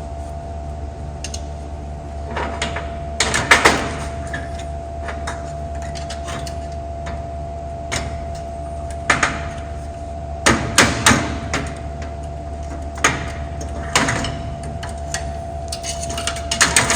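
Scattered metal clunks and clicks from handling and working on old car window-crank hardware, with louder clusters about three to four seconds in and again around ten to eleven seconds in, over a steady background hum.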